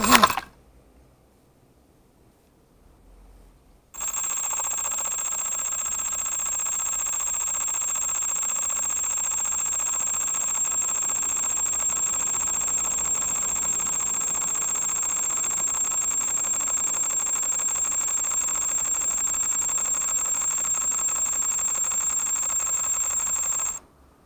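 Eachine Racer 250 quadcopter's motors, revving up and down, cut off abruptly as it comes down in tall grass. After about four seconds of near silence, a steady high-pitched electronic whine comes from the downed quad for about twenty seconds, then stops suddenly.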